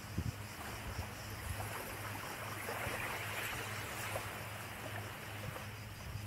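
Small waves lapping gently on a sandy shore: a steady soft wash with small irregular splashes.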